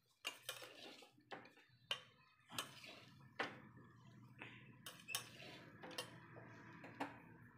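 Metal spoon stirring poha in a steel pot, scraping and clinking against the pot's side in a string of irregular clicks and short scrapes.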